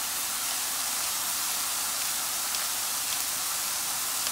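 Sliced mushrooms sizzling steadily in a frying pan in butter and coconut oil.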